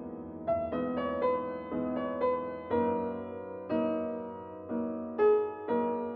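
Slow piano music: single notes and chords struck one after another, each ringing out and fading before the next.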